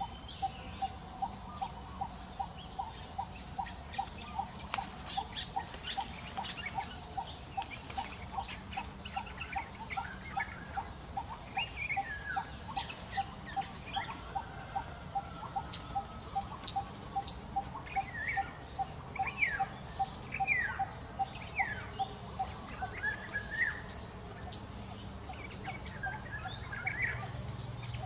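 Bird calls: one bird repeats a short single note about two to three times a second throughout, while chirps and short falling calls join in from about ten seconds on, with a few sharp clicks.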